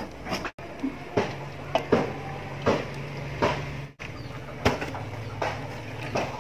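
Metal ladle clinking and knocking against a large aluminium pot, over and over, as scoops of drained, part-cooked rice are tipped onto the biryani masala, over a low steady hum. The sound cuts out for an instant twice.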